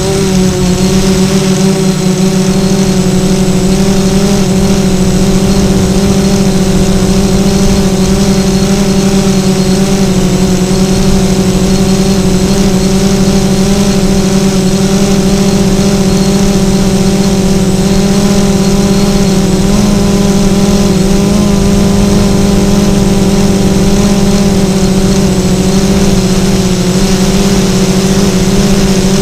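Small electric motors of a remote-controlled FPV craft running steadily at an even pitch, with a constant hiss above the hum, as picked up by its onboard camera.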